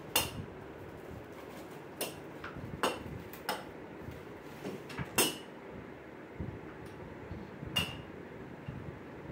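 Tricycle frame parts knocking and clinking together as they are handled and fitted: about six sharp knocks spread irregularly, the loudest about five seconds in.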